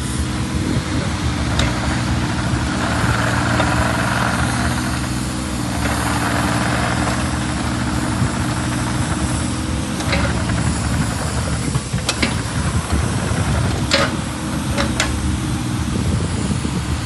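Takeuchi TB216 mini excavator's diesel engine running steadily while the machine slews and moves. A rushing hiss comes through for a few seconds early in the stretch, and a handful of sharp knocks follow in the second half.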